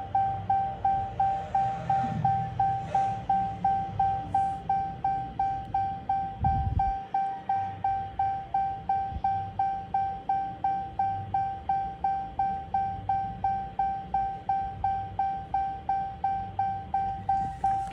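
Jeep Cherokee's electronic warning chime repeating steadily, about two and a half dings a second, all at one pitch. There is a low hum underneath and a brief low thump about six and a half seconds in.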